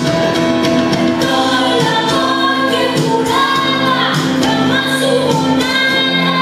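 Music with a woman singing a ballad, holding long notes with vibrato over a band backing and backing voices.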